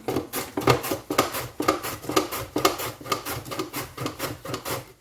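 Knife chopping a carrot on a cutting board: a rapid, even run of chops, about four a second.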